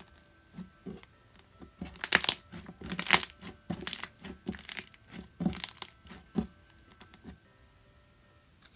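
Slime being squished and pressed by hand, giving irregular bursts of crackling, popping clicks that stop about seven seconds in.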